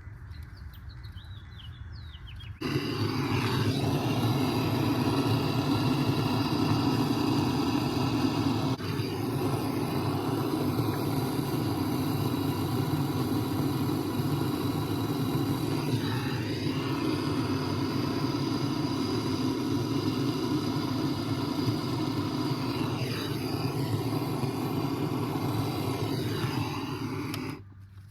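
A machine running steadily, starting abruptly a couple of seconds in and cutting off just before the end, with a few brief dips where it seems to load down.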